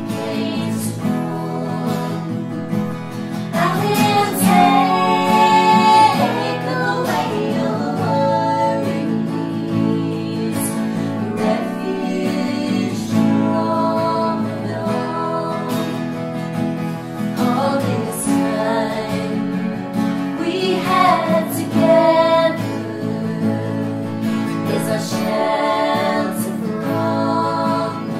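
Two acoustic guitars strummed while three women sing together.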